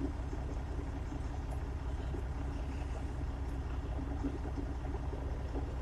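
Steady low rumble of a truck's engine heard from inside the cab, with a faint steady hum over it.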